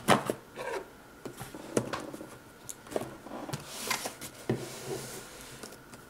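Hands handling a taped cardboard shipping box: scattered clicks, knocks and short rustles of cardboard, packing tape and paper, with a longer rustling scrape a little before four seconds in.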